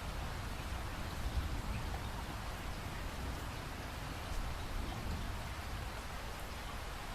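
Steady rain falling, an even hiss with scattered drops pattering.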